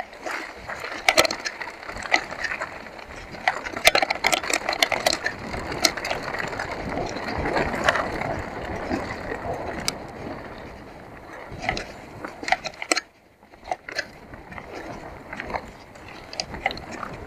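Mountain bike descending a dirt downhill trail at speed: tyres rolling over dirt while the chain and frame rattle, with frequent sharp clacks over bumps. The noise drops away briefly about thirteen seconds in, then the rattling resumes.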